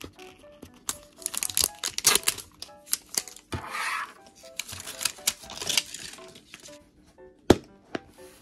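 Plastic packaging of Miniverse miniature capsule parts crinkling and being torn open in short crackly bursts, with a longer tearing stretch a few seconds in and a sharp click near the end. Soft background music plays under it.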